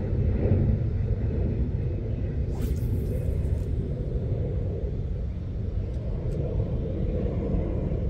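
A steady low rumble of outdoor noise, with a brief airy whoosh of a fishing rod cast and line paying out about two and a half seconds in. Two light clicks follow a few seconds later.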